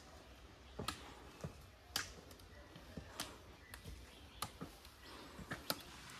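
Irregular sharp clicks and taps, about one a second, of footsteps and trekking-pole tips striking a rocky dirt trail.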